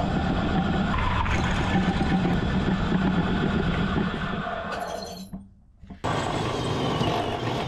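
Cordless drill running at speed with a steady motor whine. It runs for about five seconds, stops suddenly, and starts again about a second later, winding down near the end.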